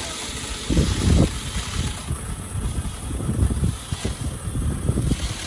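Wind buffeting the microphone in uneven low gusts, over a steady hiss that thins out for a few seconds midway.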